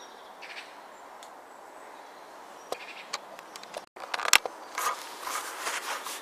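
Quiet woodland ambience with a few faint clicks. About four seconds in, after a sudden break, a sharp click and then rustling and crinkling of clear plastic map sheets being handled.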